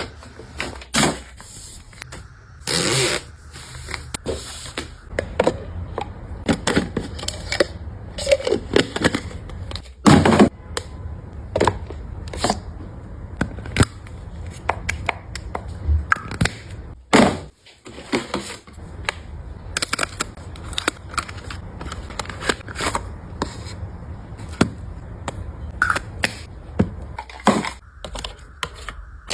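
Toiletry bottles and storage containers being handled, set down and slid about on shelves: an irregular run of clicks, knocks and short scrapes over a low steady hum.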